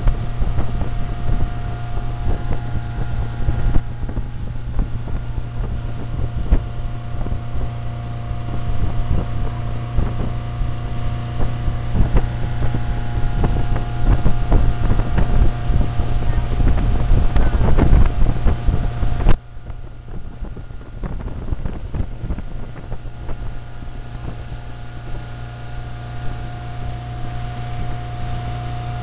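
Motorboat engine running steadily at speed while towing a water skier, with wind buffeting the microphone and the wake rushing. About two-thirds of the way through the wind rush drops away suddenly, leaving the engine hum plainer.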